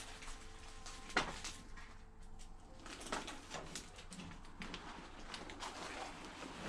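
Scattered faint clicks, knocks and rustles of footsteps and a gloved hand moving through debris and junk on a floor, with one sharper click about a second in. Faint sustained string-music tones fade out in the first second or two.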